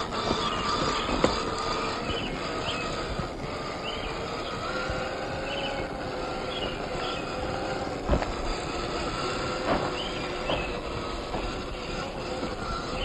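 Scale RC rock crawler's electric motor and geared drivetrain whining steadily as it crawls, its pitch shifting a little with throttle, with a few sharp knocks from the truck on the terrain.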